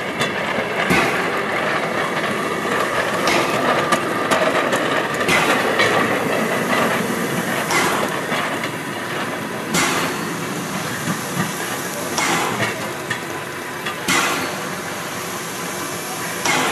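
Steel wheels of a small rail trolley rolling over old track, with a steady rattle and sharp clacks at irregular intervals as the wheels cross rail joints and points. A steady hiss sits underneath.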